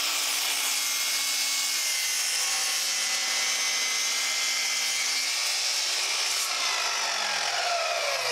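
Hercules 20V brushless cordless 10-inch sliding compound miter saw running at full speed and cutting through a 2x8 treated pine board. Near the end the trigger is released and the blade spins down with a falling whine.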